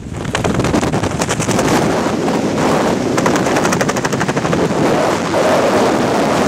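Loud rush of air past a skydiver's helmet camera under an open parachute, with a fast fluttering rattle of many beats a second, strongest in the first half.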